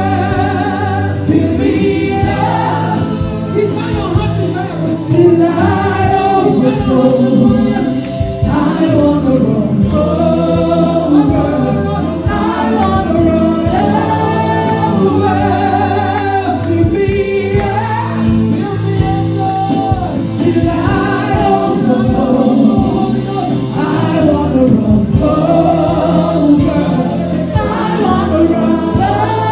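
Gospel praise-and-worship singing: a woman leads on a microphone and a group sings along, over steady instrumental backing with a regular beat.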